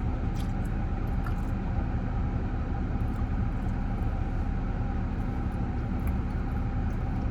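Steady low rumble of a car running, with a faint steady hum and a few light ticks.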